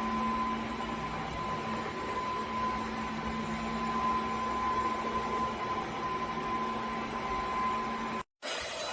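Cordless wet-dry vacuum motor running steadily, a hum of airflow with a held whine. The sound cuts out for an instant near the end, then a steady vacuum sound resumes at a different pitch.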